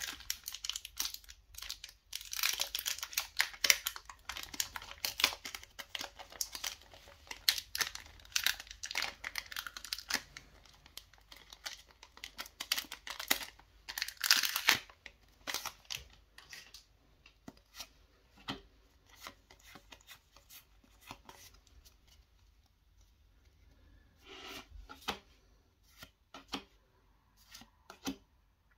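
The foil wrapper of a Pokémon TCG Crown Zenith booster pack being crinkled and torn open, with crackling for about the first fifteen seconds and the loudest tear near the end of that stretch. After that come quieter scattered clicks and rustles as the cards are handled.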